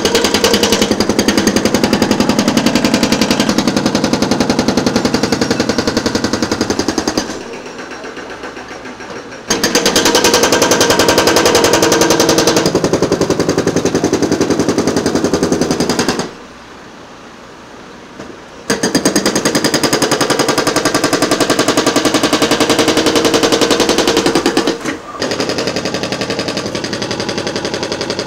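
Hydraulic breaker hammering in long runs of rapid blows. It pauses briefly about seven and about sixteen seconds in, then hammers on and turns quieter for the last few seconds.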